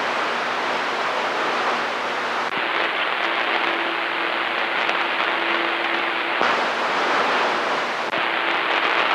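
CB radio receiver hissing with static between transmissions. The noise shifts about two and a half seconds in and again near six and a half seconds, with a faint steady tone in between, as a carrier is keyed with nobody talking.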